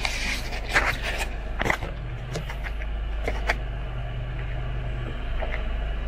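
Car engine running, a steady low hum heard from inside the cabin, with a few irregular knocks and scrapes from a handheld camera being moved about.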